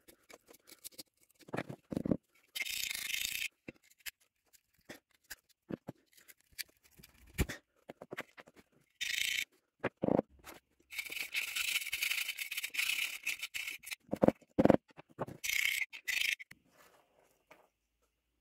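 Rusted steel parts scraped and pried out of a corroded steel bayonet scabbard's mouth with a thin metal rod: several bursts of rough scraping among scattered small metallic clicks and knocks. The internal spring is rotten with rust.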